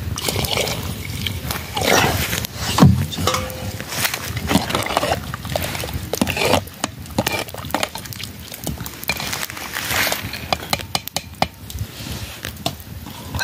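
Metal spoon stirring and knocking against a metal pot of cooking rice, with scattered clinks of metal on metal. Near the start, water is poured into the pot from a plastic jerrycan.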